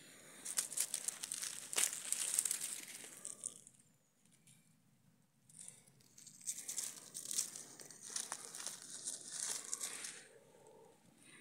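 Dry fallen leaves rustling and crackling in two spells, with a short quieter gap between them.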